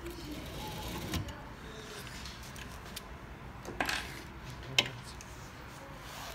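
Light handling noise from a 3D printer's toothed belt and pulley parts being fitted by hand, with a few small sharp clicks, the loudest about four and five seconds in.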